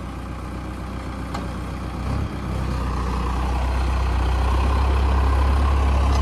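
Farmtrac 6055 tractor's diesel engine running steadily under load as it hauls a heavily loaded trailer, getting louder about two seconds in and rising further as it drives forward up the rough slope.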